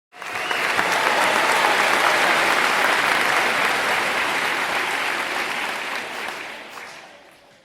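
Audience applauding: many hands clapping that start abruptly, hold steady, and fade away over the last two seconds or so.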